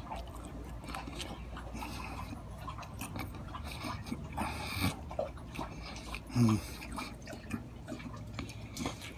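A man chewing a mouthful of burger, with faint wet mouth clicks. He gives a short, low 'mm' hum about six and a half seconds in.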